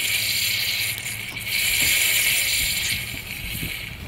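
Aerosol can of carburetor cleaner hissing as it is sprayed through a hose and purge valve into a two-stroke string trimmer's diaphragm carburetor. The hiss swells about one and a half seconds in and eases off near the end.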